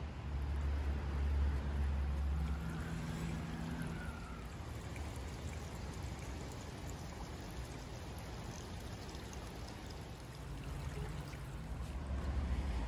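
Rainwater runoff running and trickling over concrete steps into a drain, a steady rushing. A low rumble covers it at the start and again near the end.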